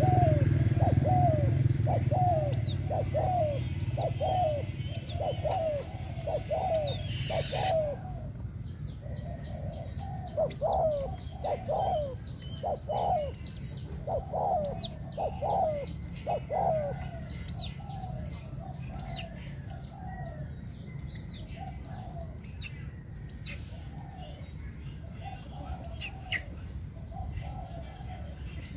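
Spotted dove cooing in a long run of short coos, about two a second, louder in the middle and fainter toward the end. Small birds chirp high above it, and a low rumble fades out over the first few seconds.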